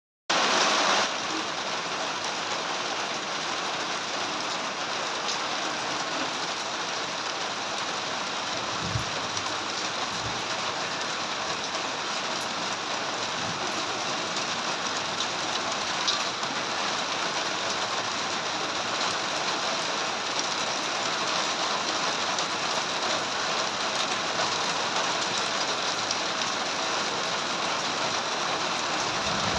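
Steady rain falling, an even hiss that is a little louder in the first second, with two brief low thumps about nine and ten seconds in.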